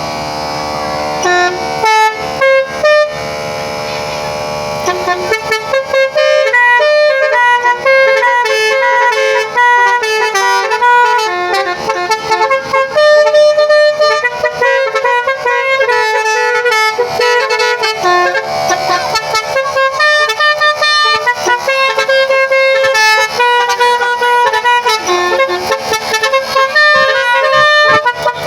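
Basuri telolet horn set on a pickup truck, several tuned horn trumpets sounding together. It holds a chord with a few short blasts, then from about five seconds in plays a quick melody note by note.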